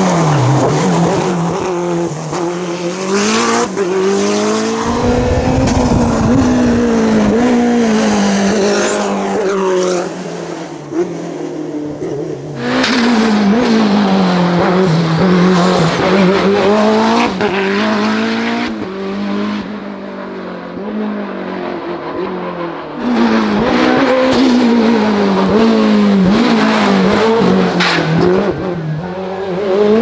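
Lancia Delta Integrale hill-climb race car accelerating hard, its engine revving up and dropping back again and again as it shifts through the gears.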